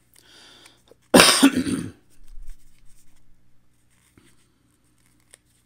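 A man coughing once, a short loud cough about a second in.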